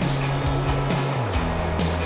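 Background music with a steady beat and a bass line that moves to a lower note a little over a second in.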